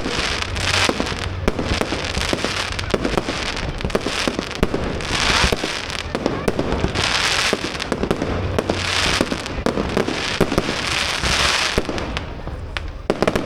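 Fireworks display going off: a dense run of bangs and crackling bursts with repeated hissing swells, easing off near the end.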